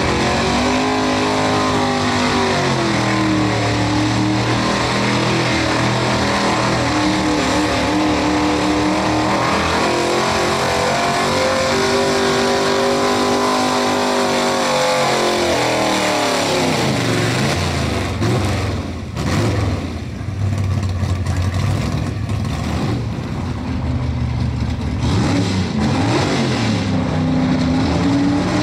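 Engine of a square-body Chevrolet pulling pickup under full load, dragging a weight-transfer sled. For about fifteen seconds the revs rise and fall in long swells, then they drop away as the pull ends. Shorter revs follow near the end.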